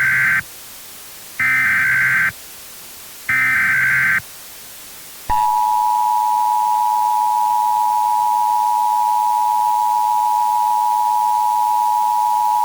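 Emergency Alert System activation tones: three short bursts of SAME digital header data, each about a second long and a second or so apart. About five seconds in comes the steady two-tone attention signal. Together they announce a civil emergency message.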